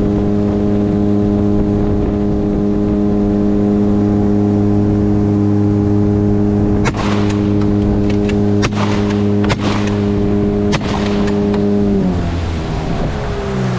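Boat's outboard motor running at a steady cruising pitch, with a few sharp knocks in the middle, then throttled back about twelve seconds in, its pitch dropping as the boat slows.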